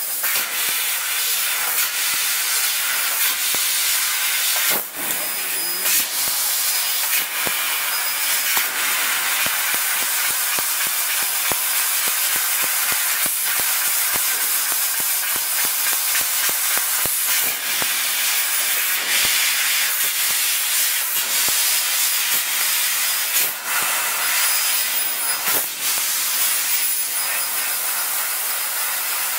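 Fiber laser cutting head cutting sheet steel: a steady, loud hiss of assist gas jetting from the nozzle, with a couple of brief dips as the head moves between cuts.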